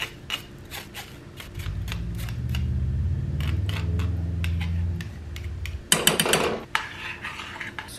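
Repeated light metallic taps of a fine mesh strainer knocked against the rim of a stainless steel saucepan, shaking rinsed quinoa out into the water. A low hum runs through the middle, and about six seconds in a spoon scrapes and clinks against the strainer and pan in a brief, louder clatter.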